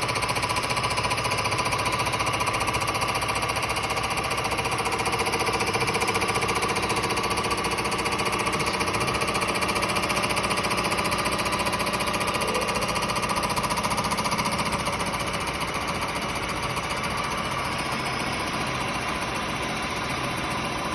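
Berco-type BM160 vertical boring and milling machine's milling head running its programmed milling pass: a steady, dense machining noise with a fast rattle, easing slightly past the middle.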